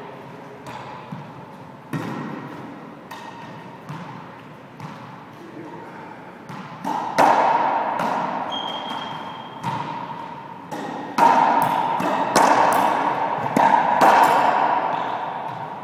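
Racquetball in play in an enclosed court: sharp cracks of the ball off racquets, walls and floor, each ringing on in the court's echo. The hits come about a second apart at first, then a fast, louder rally starts about seven seconds in, with a brief high squeak partway through.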